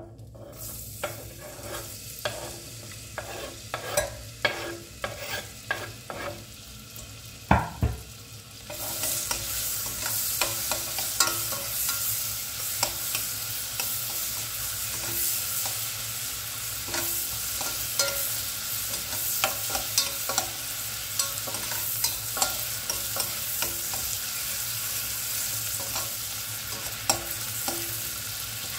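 Chopped onion scraped off a wooden board into a stainless-steel pot of hot butter, with taps and knocks against the pot. From about nine seconds in the onions sizzle loudly and steadily in the butter while a metal spoon stirs them, clicking against the pot.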